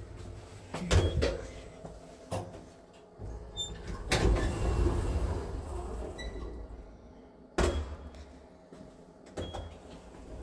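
Passenger lift's automatic sliding doors opening at a landing, with clicks and knocks from the door gear, a few short high beeps, and one sharp knock a little past the middle.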